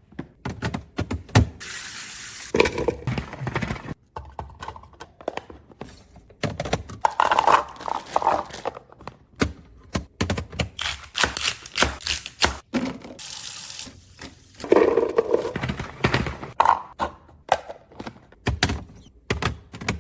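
Plastic fridge organizer bins and lids being handled: a run of knocks, clicks and thunks, with two short hissing sounds, one about two seconds in and one about thirteen seconds in.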